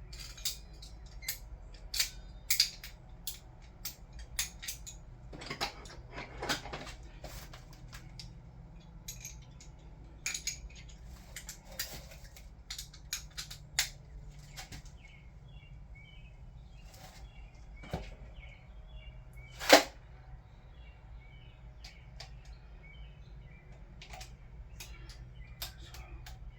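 Scattered sharp metallic clicks and clinks of hand tools working the camshaft cap bolts on a Toyota 2JZ cylinder head, with a socket and wrench being fitted and turned. One loud clack comes about two-thirds of the way through.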